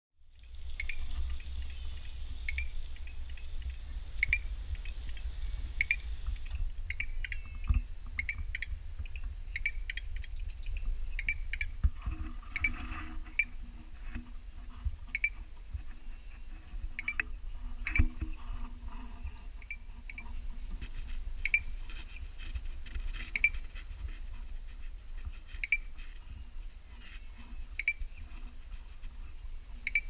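Small treefrogs calling: short, sharp notes repeated every second or two, over a constant low rumble. A steady high insect-like buzz runs alongside and stops about six seconds in.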